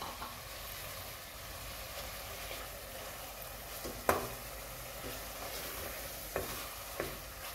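Raw chicken pieces sizzling as they fry in onion-tomato masala in a metal pot, stirred with a wooden spatula. The spatula knocks sharply against the pot about four seconds in and twice near the end.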